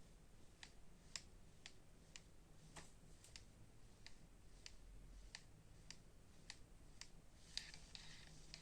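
Daiwa Exceller fishing reel turning with a faint, sharp knock about twice a second: the knocking fault in the reel.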